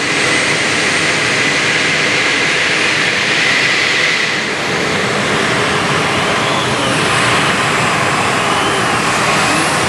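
A 7,500 lb modified pulling tractor's engine running loud and hard at the start of a hook, with a high whine over the first few seconds and pitch rising and falling as it revs later on.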